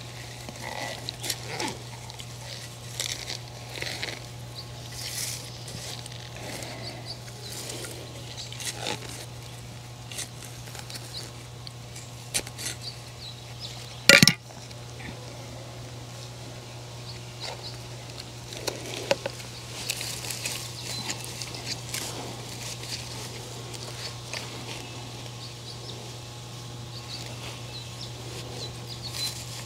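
Hand trowel scraping and digging in dry garden soil, with light rustles and taps, as seedlings are set into the ground. One sharp knock about fourteen seconds in is the loudest sound. A steady low hum runs underneath.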